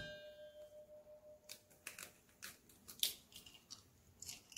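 A stainless steel mixing bowl rings faintly and dies away after an egg has been knocked on it, then the eggshell gives a string of faint crackles and clicks as it is pried open by hand.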